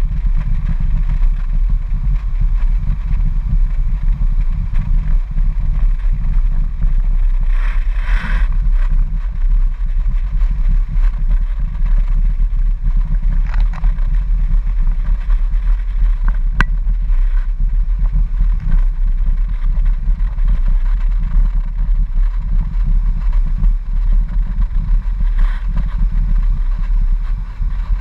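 Car driving at low speed, a steady low rumble of engine and tyre noise carried through the dashboard into a camera mounted inside the cabin, with a few brief rattles.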